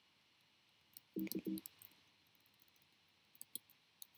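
Computer keyboard keys clicking faintly as a few letters are typed, a handful of separate clicks. About a second in there is a short hum from a man's voice.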